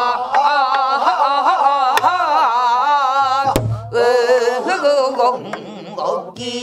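A group of voices singing a Korean Namdo folk song in unison, holding long notes with a heavy, wavering vibrato. A buk barrel drum is struck a few times, the heaviest stroke about three and a half seconds in.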